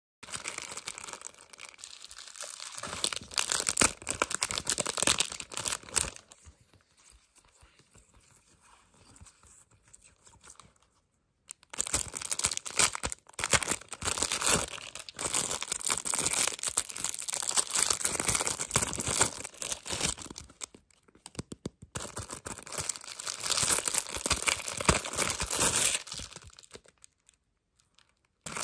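Clear plastic packaging sleeves being torn open and crinkled by hand as photocard holders are unwrapped, a dense crackling that comes in long stretches broken by short pauses.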